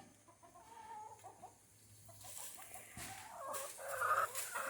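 Backyard chickens clucking softly, getting louder in the last second or so.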